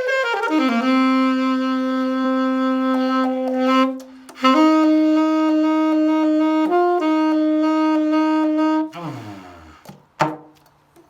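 Saxophone playing long held notes, a lower note and then a higher one with a brief change in pitch in the middle, ending about nine seconds in with a falling slide in pitch. A single short knock follows about a second later.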